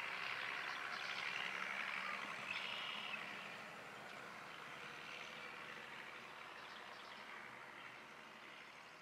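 International Harvester 3588 2+2 tractor's turbocharged six-cylinder diesel driving past at a distance while pulling a planter folded for transport. The sound is steady and faint, loudest for the first three seconds, then slowly fading as the tractor moves away.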